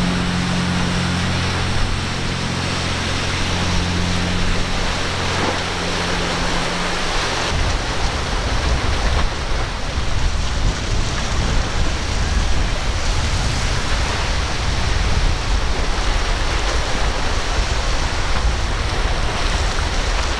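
A large sportfishing yacht's engines drone steadily under the rush of its spray as it runs by at speed. About a third of the way in this gives way to a Grady-White center console with triple Yamaha 350 outboards running at speed, heard mostly as rushing spray and water over an uneven low rumble.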